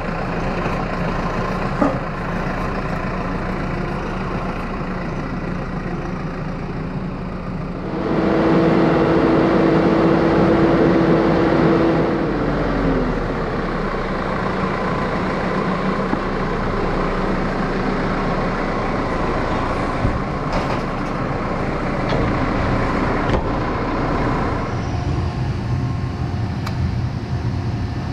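Heavy engine-driven machinery running steadily. About eight seconds in it grows louder with a whine, which slides down in pitch a few seconds later, and the sound changes again near the end.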